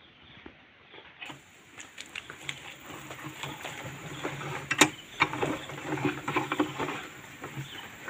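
Homemade steel bench vise being handled: irregular metallic clicks and rattles from the sliding handle bar and screw, with one sharp clack a little under five seconds in.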